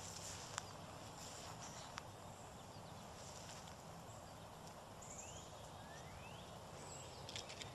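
Quiet outdoor ambience: a faint steady background with a few sharp clicks, and a little past halfway three or four short rising chirps.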